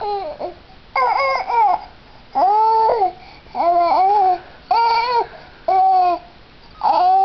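A baby of about six and a half months babbling in a string of about six drawn-out, high-pitched vocal sounds. Each one rises and falls in pitch, with short pauses between them.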